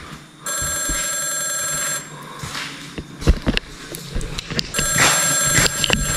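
Telephone ringing twice, each ring a steady tone lasting about a second and a half, with a pause of a few seconds between the rings.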